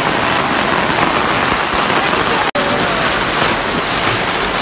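Heavy rain pouring steadily, broken by a momentary gap about halfway through.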